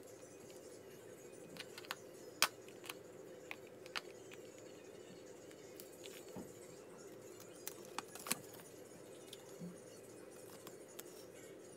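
Sharp clicks and light rattles as a hard glasses case is handled and opened and the paper and card inserts are lifted out, the loudest click about two and a half seconds in, over a faint steady hum.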